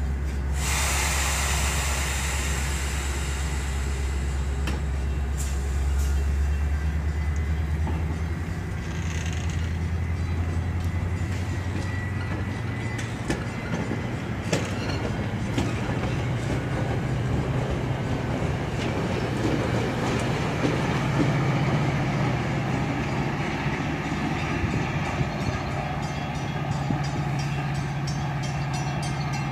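Metra commuter train of stainless bilevel coaches rolling past and pulling away, wheels clicking over the rail joints. Under it, the low drone of an MP36PH-3S diesel locomotive's EMD 16-645 two-stroke V16 engine steps up in pitch a few times as it throttles up.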